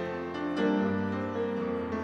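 Piano music, slow sustained chords.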